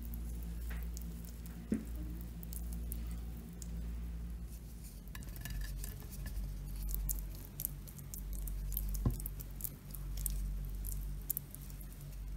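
Silicone spatula spreading sticky jam over the top of a baked cake: soft squishing with scattered light clicks. There are two sharper taps against the glass baking dish, one about two seconds in and one past the middle, over a steady low hum.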